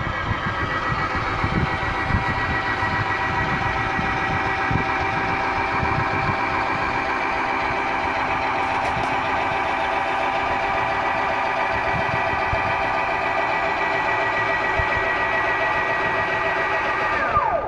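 12-volt DC motor and reduction gearbox whining steadily as it turns a screw drive that raises a chicken coop door. Near the end the whine drops in pitch and cuts off as the door reaches the upper limit switch.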